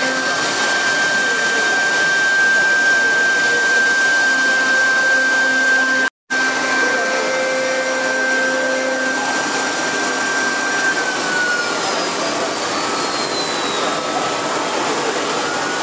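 Two-spindle CNC router (CC-M1325AS2) running: a steady high whine over a loud rushing noise. The sound breaks off for a moment about six seconds in. Later the whine drops in pitch and then rises again near the end.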